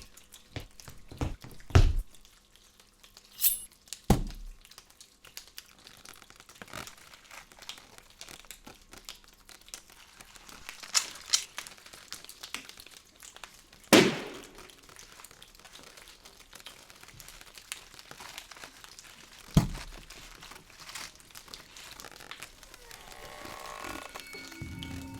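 Hand-made foley sound effects: scattered knocks and thuds with some crinkling, with a few sharp impacts standing out, the loudest about fourteen seconds in.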